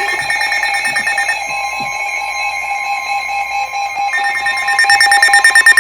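Emergency Alert System alert tones: a loud electronic alarm of several steady tones sounding together, turning into a rapid pulsing near the end, the attention signal ahead of a spoken severe thunderstorm warning.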